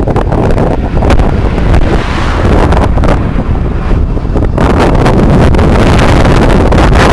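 Wind buffeting the microphone of a camera riding on a moving mountain bike, a loud steady rumbling rush. It gets denser and brighter about four and a half seconds in.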